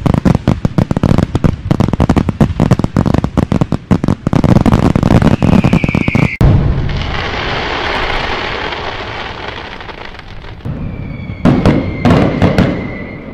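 Fireworks: a rapid run of crackling bangs, a whistle near six seconds, then a long fizzing crackle that fades away. A few more bangs and another whistle come near the end.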